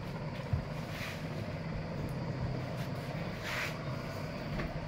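Steady low rumble of a running vehicle engine, with a short knock about half a second in.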